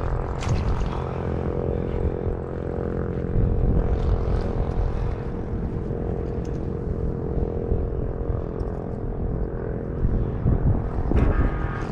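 A steady, engine-like drone holding one pitch, over a low rumble.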